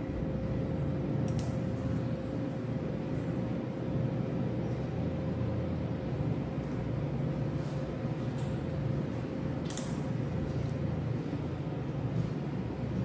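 Steady low hum of operating-room background with a faint constant whine. A few brief clicks of metal surgical instruments stand out, the clearest about a second and a half in and near the ten-second mark.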